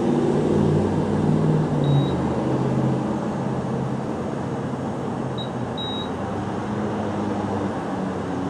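Gas pump card reader beeping: one short high beep about two seconds in and two more close together near six seconds, while the pump processes a credit card payment. A steady low hum runs underneath.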